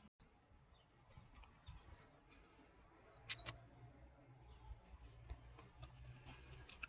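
A gull gives one short, high, wavering cry about two seconds in, and two sharp clicks follow in quick succession a little over a second later.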